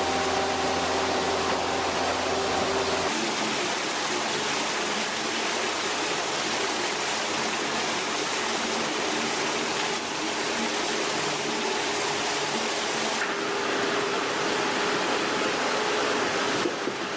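Steady rushing noise with a machine's engine hum underneath, the mix changing abruptly about three seconds in and again near thirteen seconds as the shots change.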